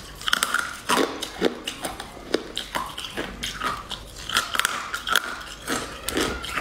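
Close-up biting and chewing of crisp, sugar-coated sticks: a run of sharp crunches, several a second.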